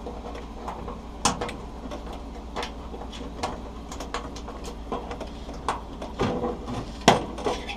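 Irregular clicks and taps of a range hood switch being worked by hand, its squeeze-fit clips being pushed through the hood's mounting hole, with sharper knocks about a second in and near the end.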